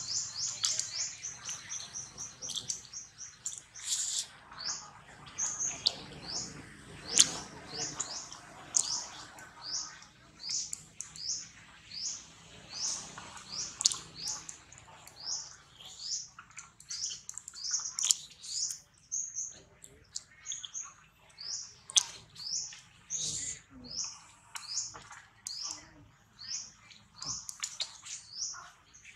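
A bird repeating a short, high chirp over and over, about one to two calls a second, with scattered faint clicks.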